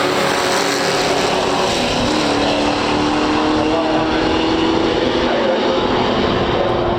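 A 1970 Chevrolet Camaro SS396 and a 1964 Studebaker Challenger R3, both V8s, running at full throttle down the drag strip. The engine note climbs steadily from about two seconds in.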